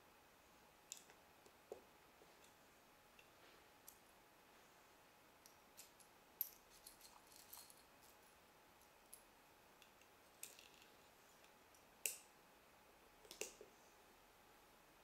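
Scattered small clicks and taps of plastic Lego pieces being handled and pressed together, irregular and sparse, with the sharpest clicks about six seconds in and twice near the end.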